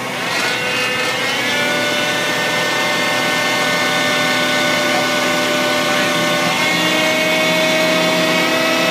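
Frac truck engine running. It speeds up over the first second and a half, then holds at a steady pitch with a whine.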